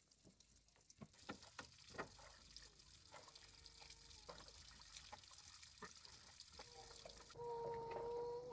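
Faint water being poured and trickling down through a bamboo floor onto the ground, with a few light knocks in the first couple of seconds. Near the end a high, drawn-out call begins.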